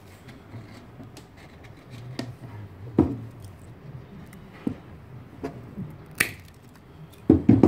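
Scattered light clicks and small knocks of a hand crimping swage tool, steel wire rope and a ferrule being handled, with a louder cluster of knocks near the end.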